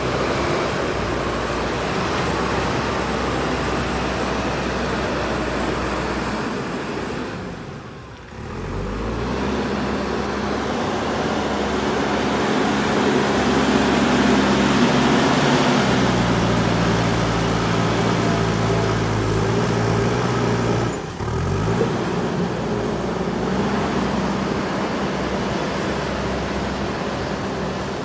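JCB 3DX Super backhoe loader's diesel engine running under load. Its note is steady, drops briefly twice, and each time climbs in pitch as the engine comes back up.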